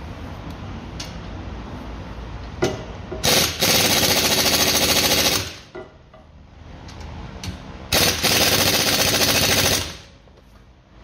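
A 1/2-inch pneumatic impact wrench hammering, in two bursts of about two seconds each, as it tightens a bolt on a new front wheel-bearing hub. A few short knocks come before the first burst.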